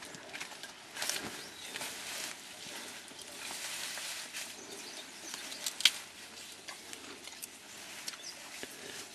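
Foliage rustling and stems crackling as mountain gorillas move through dense undergrowth and feed on wild celery, with many small snaps and one sharp snap about six seconds in.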